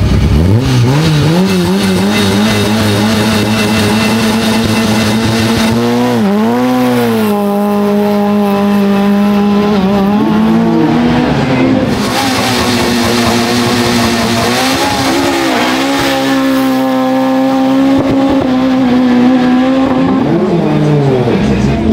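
Rally car engine revved up and held steady at high revs on the start line, then launched about six seconds in. The revs dip and climb again a few times as it accelerates away through the gears.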